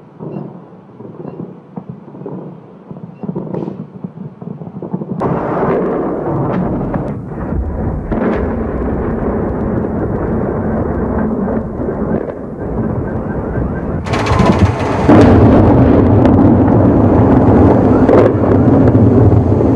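Explosions from the bombardment of a city. For the first few seconds there are scattered cracks and thuds. From about five seconds in they run together into a continuous rumble of blasts, which turns much louder and harsher about fourteen seconds in.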